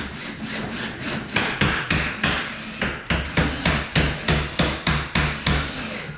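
Steady hammering, about three blows a second, each with a deep thud; the strikes are less regular in the first second or so and stop shortly before the end.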